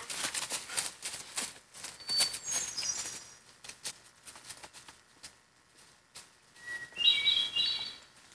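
Footsteps crunching and rustling through dry fallen leaves on a forest trail, heaviest in the first few seconds. A bird gives a few short high chirps about two seconds in and a louder cluster of chirps near the end.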